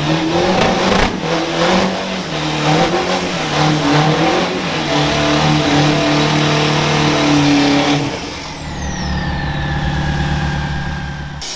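Pickup truck engine revving hard through a tyre burnout, the spinning rear tyre adding a rough hiss. Near the end it gives way abruptly to an engine running more evenly with a low pulsing and a high whistle that slowly falls in pitch.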